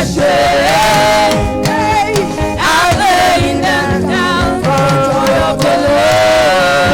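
Live gospel worship music: voices singing long held notes over a band.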